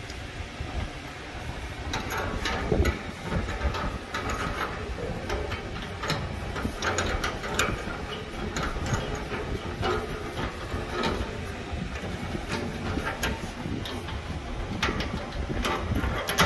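Chrome faucet fittings being handled and threaded together by hand against a stainless steel sink: irregular metallic clicks and taps over a low background rumble.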